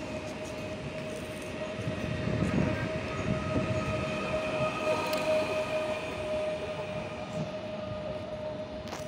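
PESA Elf (27WE) electric multiple unit pulling out alongside the platform, its electric drive giving a steady whine over the rumble of the wheels and running gear. The rumble is heaviest a couple of seconds in, and a short click comes near the end.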